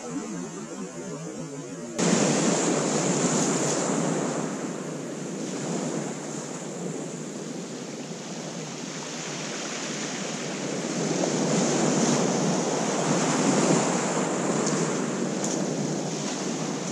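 Small waves breaking and washing up a shingle beach, with wind on the microphone. The rushing noise jumps louder about two seconds in, then swells and eases slowly.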